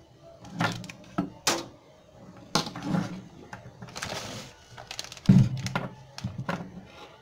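Knocks and clicks of a Bosch angle grinder being handled while switched off and unplugged, with a short plastic rustle about four seconds in and a heavy thud just after five seconds as it is set down on the table.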